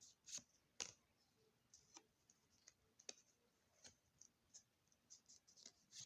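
Faint, irregular light clicks and taps of Pokémon trading cards being handled and flipped through one by one, about a dozen in a few seconds.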